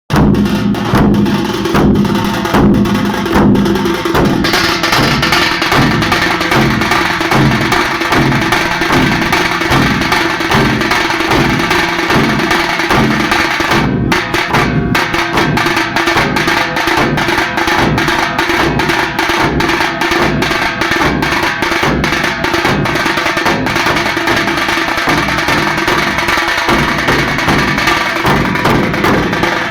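Halgi frame drums beaten together in a loud, fast, driving rhythm, with sharp stick strokes over a deep steady beat.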